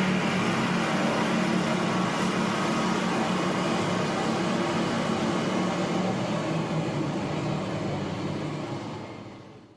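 Road roller's engine running steadily with a low hum, fading out near the end.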